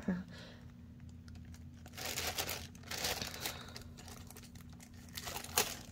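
Clear plastic sleeve crinkling in several short bursts as an A5 planner is slid out of it.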